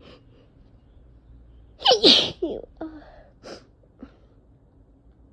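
A person sneezing once, hard, about two seconds in: a sharp noisy blast with a voiced cry that falls in pitch. A couple of short, fainter breaths follow. It is an allergic sneeze, set off by a reaction to cats.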